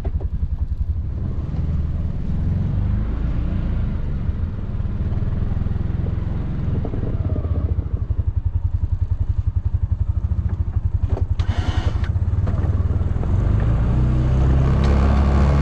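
Can-Am Defender side-by-side's engine running under load while plowing snow, a steady low throb that grows louder near the end. A brief rush of noise comes about twelve seconds in.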